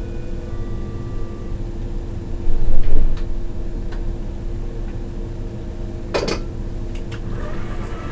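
Berlin S-Bahn electric train standing at a platform with its equipment humming steadily. A short tone sounds about half a second in, a louder noisy rush comes around two and a half to three seconds, and a sharp clack about six seconds in.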